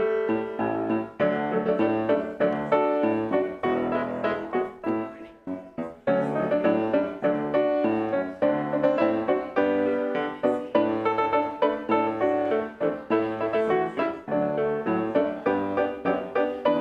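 Piano music: a continuous run of notes and chords, briefly softer about five seconds in.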